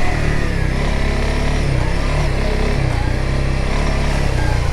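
Honda CRF300L Rally's single-cylinder four-stroke engine running steadily at a fairly constant pitch under riding load, over a steady hiss.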